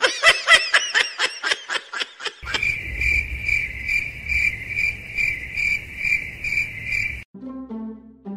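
Cricket chirping: a high, steady trill that pulses about twice a second. It follows a quick run of high squeaky notes and stops suddenly, giving way to a few short low musical notes near the end.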